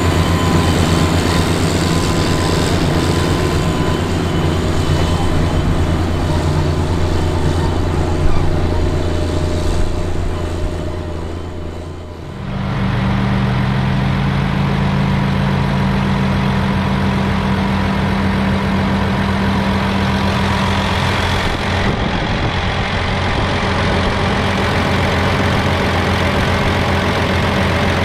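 The Komatsu 11-litre intercooled turbocharged diesel of a Steiger SM-325 Panther IV tractor running steadily under load while pulling a chisel plow. About ten seconds in the sound fades and is replaced by a closer, steady recording of the same engine running.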